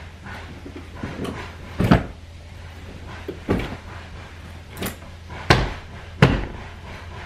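Deliberately noisy packing: clothes and hangers grabbed and slammed down into a bag on a bed, giving a string of sharp knocks and thumps at irregular intervals. The loudest come about two seconds in and twice near the end.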